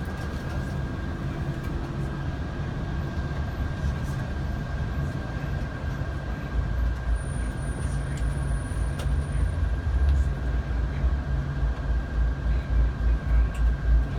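Steady low rumble of a vehicle running, heard from inside, with a low pulsing throb that grows stronger about halfway through.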